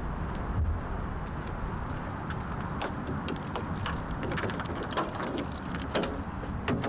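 A bunch of keys jingling as a key is worked into a car's door lock, starting about two seconds in, over a steady low rumble, with a couple of sharper clicks near the end.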